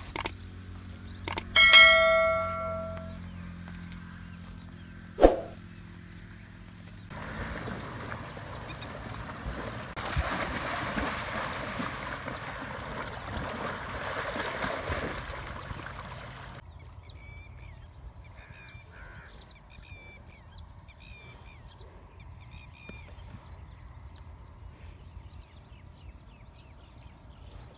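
A bell-like ding sound effect rings out about two seconds in, with sharp clicks around it, from a subscribe-button animation. From about seven seconds, water buffalo wade through a muddy river with a rush of splashing water. That stops suddenly and gives way to small birds chirping repeatedly.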